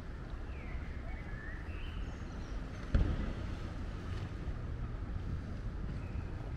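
Outdoor waterfront ambience: a steady low rumble of wind on the microphone and distant traffic, with a few short chirps in the first couple of seconds. About three seconds in the sound jumps abruptly louder where the recording cuts.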